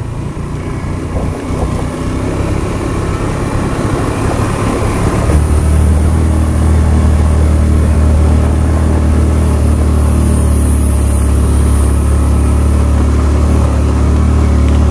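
Motorcycle engine running while riding, with road and wind noise; about five seconds in the engine note becomes louder and steadier.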